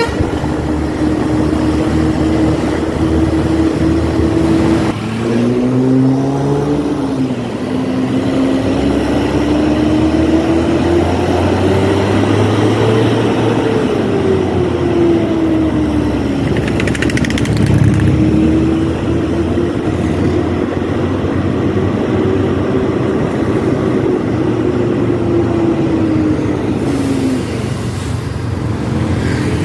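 A road vehicle's engine running under way, its pitch slowly rising and falling as it accelerates, eases off and changes gear. There is a brief hiss a little past halfway.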